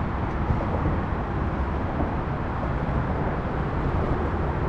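Steady, gusting low rumble of wind buffeting the microphone, with no engine tone in it.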